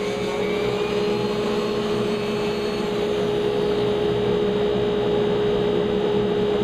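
4-inch shop dust collector running steadily with a strong, even hum, pulling air through a downdraft sanding table.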